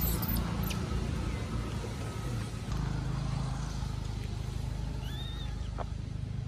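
Baby macaque giving thin, high-pitched squealing cries at the very start, then one short call that rises and falls about five seconds in, over a steady low rumble.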